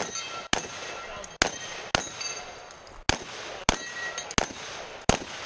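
Rapid semi-automatic gunfire from a long gun: about eight shots, spaced roughly half a second to a second apart. Between the shots come short metallic rings, typical of steel targets being hit.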